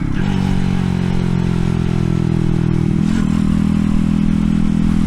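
A minibike's 140cc single-cylinder four-stroke engine running under way through a stainless steel side-exit exhaust, holding a steady note. The pitch dips briefly right at the start and again about three seconds in, then settles.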